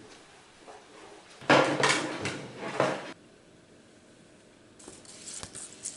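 Handling noises from setting up a record player: a loud patch of clattering and rustling about a second and a half in that lasts about a second and a half, then lighter clicks and taps near the end.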